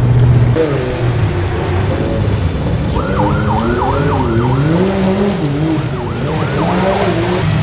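FPV racing quadcopter's motors and propellers whining, the pitch wavering quickly up and down with the throttle, over a steady low hum.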